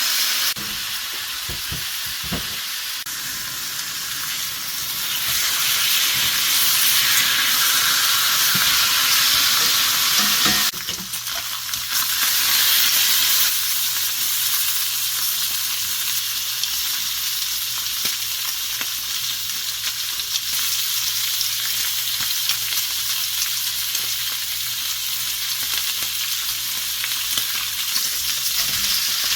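Food sizzling and frying in a pan: a steady hiss that changes abruptly about eleven seconds in.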